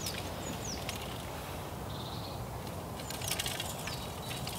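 Outdoor background: a steady low rumble with a few short, high bird chirps in the first second and some faint clicks a little after three seconds in.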